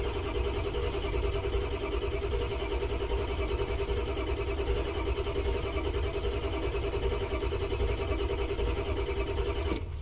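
The starter motor is cranking the 7.3 L Powerstroke V8 diesel steadily without it firing, a crank-no-start, while the batteries begin to pull down. The cranking stops abruptly near the end.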